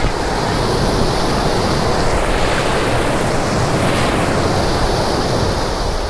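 Waterfall rushing, a loud steady wash of falling water, with wind buffeting the microphone.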